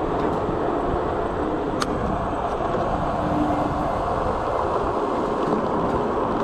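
Steady rush of wind and tyre noise from a Juiced Scrambler electric bike being ridden fast in race mode, with one sharp click about two seconds in.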